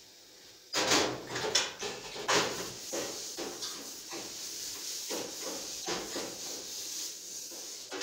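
Dishes being washed by hand at a steel kitchen sink: water running with plates and utensils clinking and clattering against a plastic basin and the sink, starting suddenly just under a second in.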